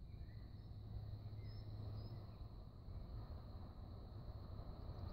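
Quiet countryside ambience: a few faint bird chirps over a steady, thin high-pitched tone and a low rumble.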